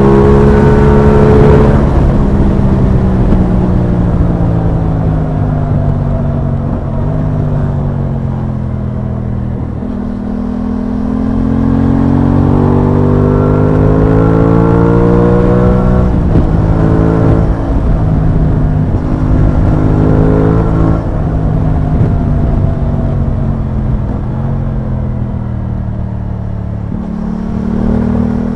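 Aprilia Tuono 660's parallel-twin engine heard from the rider's seat: the note falls for several seconds as the bike slows, then climbs steadily for about six seconds as it accelerates, dips and rises in short steps through gear changes, and falls again before a short rise near the end, over a constant rush of wind.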